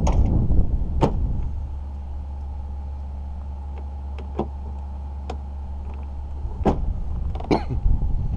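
A steady low motor hum with several sharp clicks and knocks scattered through it, and rough gusty noise at the start and again near the end.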